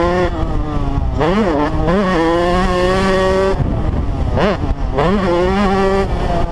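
Motocross bike engine at race pace, its pitch climbing and dropping with throttle and gear changes, with quick sharp rev swoops about a second and a half in and again between four and five seconds in.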